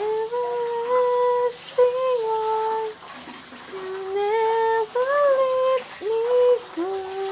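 A woman singing unaccompanied, her high voice holding long notes and sliding between them, in short phrases with brief breaks about three and six seconds in.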